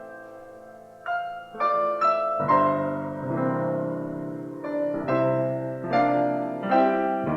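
Slow, gentle solo piano: a held chord fades for about the first second, then single notes are struck and build into fuller chords.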